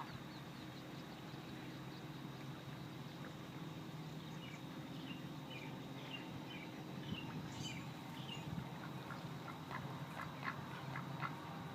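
Ducks quacking: a quick run of short quacks in the last few seconds, with faint high chirps a few seconds before.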